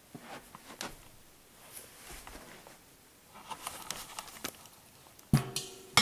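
Faint handling sounds: scattered light clicks and taps, a quick run of small ticks past the middle, then a sharp knock that rings briefly near the end.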